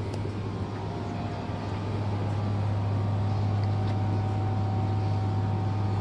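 A steady low mechanical hum of a shop's room tone, with a faint steady whine above it from about a second in.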